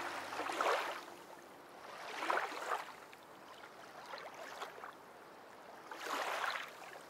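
Sprint kayak paddle strokes in the water: a swishing splash about every two seconds, four in all, the third one fainter.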